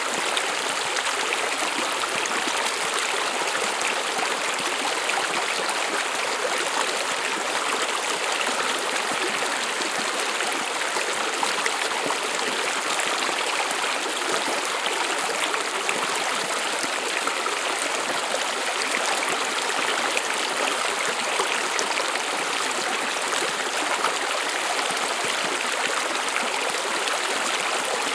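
A stream flowing over stones, a steady burbling rush of water.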